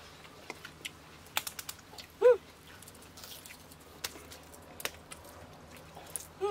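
A puppy gives one short whine about two seconds in, its pitch rising and falling. Around it come scattered small clicks and crackles of boiled eggshells being cracked and peeled by hand.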